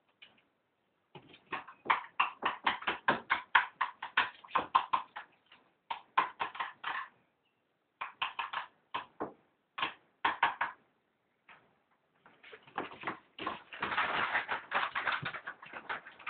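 A puppy's paws and claws tapping and scrabbling on the floor as he hops about, in quick runs of taps, about four or five a second, with a denser scrabbling stretch near the end.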